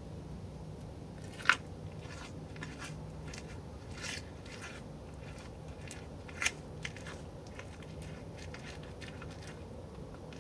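Mule deer chewing at close range: irregular crunching strokes, with two sharper, louder crunches, one about a second and a half in and one past the middle.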